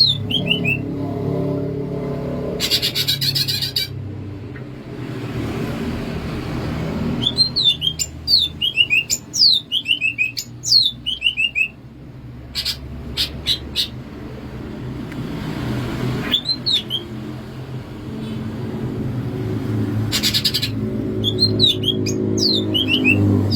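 Cucak ijo (leafbird) singing: runs of quick, falling high whistled notes, broken up by short harsh buzzy calls, several phrases over the stretch.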